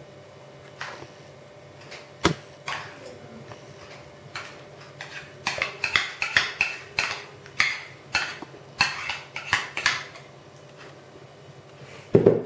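Metal spoon scraping and clinking against a ceramic dish while scooping thick custard out onto a cake base: one sharp clink about two seconds in, then a run of quick scrapes and taps from about halfway through, and a louder knock near the end.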